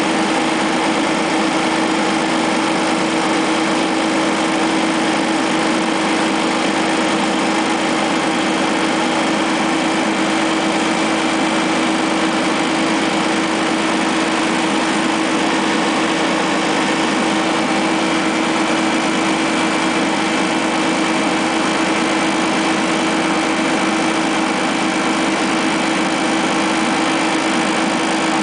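Generator set's engine running at a constant speed, a steady hum with one strong unchanging tone over mechanical hiss. The generator is putting out about 230 V.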